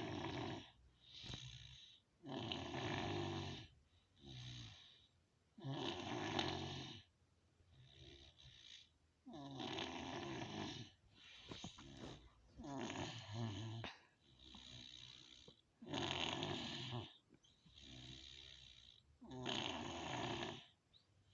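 A sleeping person snoring in a steady rhythm: a loud snore about every three and a half seconds, with a softer breath between each.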